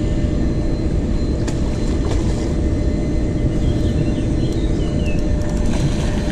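Steady low rushing noise of a fast-flowing river current close by. Near the end a hooked carp splashes at the surface.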